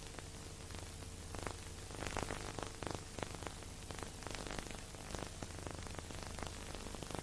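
Steady hiss and low hum with frequent small crackles and pops throughout: surface noise of an old recording, with no music playing.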